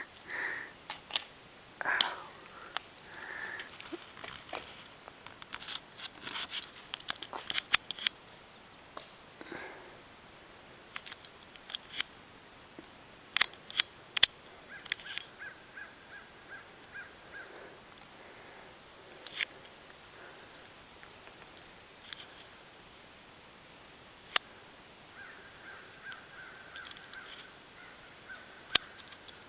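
A steady, high-pitched insect drone from the roadside, loudest through the middle, with scattered sharp clicks. Twice, once in the middle and once near the end, a short run of evenly repeated chirps comes in.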